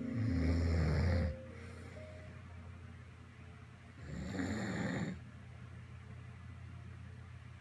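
Snoring: two deep snoring breaths about four seconds apart, the first just after the start lasting about a second, the second about four seconds in.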